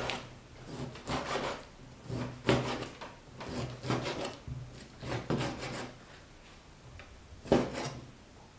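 Chinese cleaver slicing pork into small chunks on a wooden chopping board: short slicing strokes and knocks of the blade on the board, roughly one a second, then a pause before one last stroke near the end.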